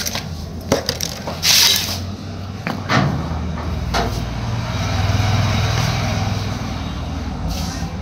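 A few sharp knocks and clicks with a short rustling scrape in the first four seconds, then a steady low hum that swells about five seconds in and fades.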